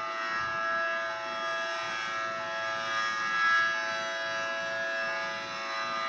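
Federal Signal EOWS 612 electronic outdoor warning siren sounding its Hi-Lo test signal, holding one steady note with strong overtones.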